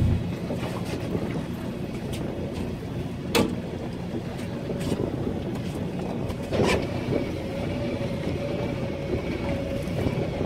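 Wind and choppy sea water around a small fishing boat, a steady rushing noise, with two sharp knocks about a third and two thirds of the way through. A faint steady whine comes in after the second knock and holds to the end.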